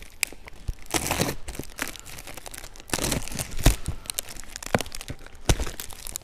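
Cardboard box being torn open by hand, with ripping, crinkling packaging and a couple of thuds.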